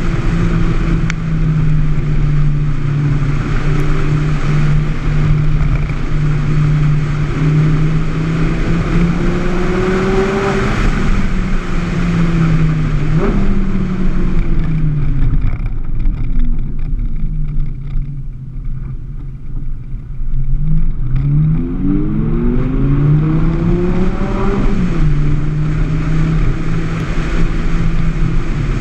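Audi R8 V10 Spyder's V10 engine through a Quicksilver aftermarket exhaust, running steadily under light load. Past the middle the revs fall and the engine goes quieter for a few seconds. Then it accelerates with the revs climbing before settling back to a steady note near the end.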